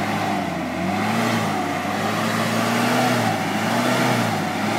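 Toyota 4x4 engine revving hard under load as it churns through a muddy rut, its pitch rising and falling again and again.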